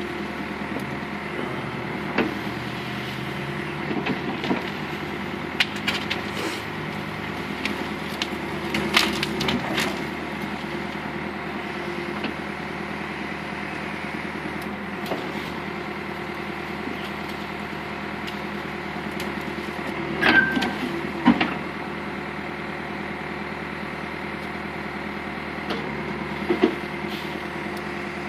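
Backhoe engine running steadily while brush and branches crack and splinter, with scattered sharp snaps, the loudest a pair about twenty seconds in.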